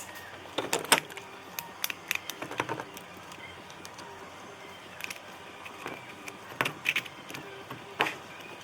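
Irregular metallic clicks and knocks from a car starter motor's parts and tools being handled during disassembly, several sharp clinks close together about a second in and a few more near the end.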